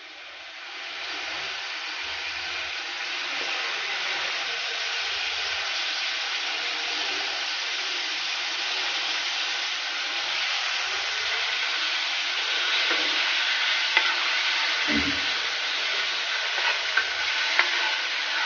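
Sliced onions sizzling in hot oil in a metal frying pan. The sizzle grows louder over the first few seconds, then holds steady. Near the end come a few clinks of the metal spoon against the pan.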